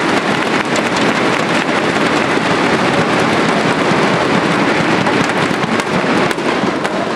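Crowd of spectators banging inflatable thundersticks together: a dense, steady, loud clatter of rapid claps.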